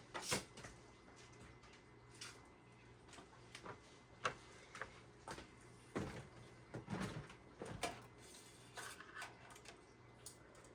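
Faint, scattered clicks and small knocks of screws and small hardware being handled and picked out, about a dozen at irregular intervals.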